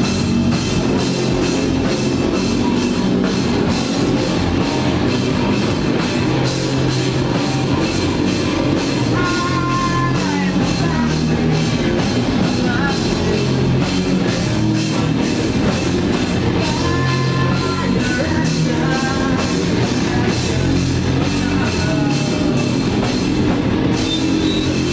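Heavy rock band playing live and loud: distorted electric guitars over a driving drum kit.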